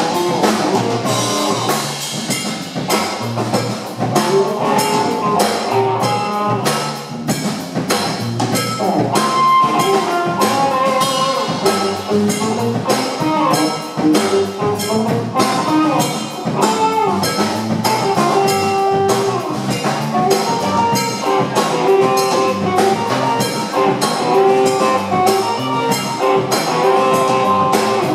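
Live instrumental band music from electric guitar, electric bass and drum kit, the drums keeping a steady busy beat while the guitar holds long notes.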